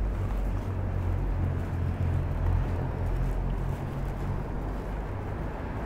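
Low, steady rumble of a motor vehicle engine running in street traffic.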